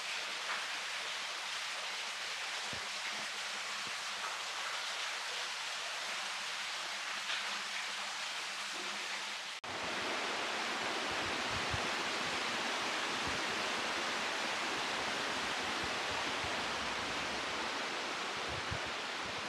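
Steady rush of falling water from a waterfall in a gorge. A brief dropout comes about halfway through, after which the rush is fuller, with irregular low rumbles.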